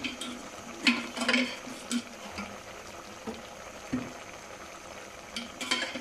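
Onions and tomatoes simmering in water in an aluminium pressure-cooker pot. Several short knocks and clinks of a spoon against the pot are heard as spoonfuls of ghee are dropped in.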